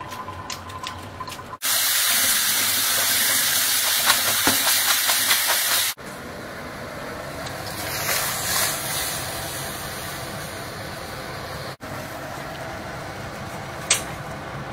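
A series of cut-together kitchen sounds: a loud, even hiss for about four seconds, then water boiling hard in a wok as a batch of shrimp is tipped in, the boil going on steadily afterwards. One sharp click near the end.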